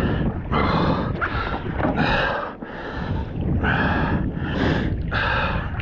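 A man breathing hard into a close microphone, quick loud breaths in and out about every half second, with a short pause about two and a half seconds in: panting after fighting and landing a big tuna from a kayak.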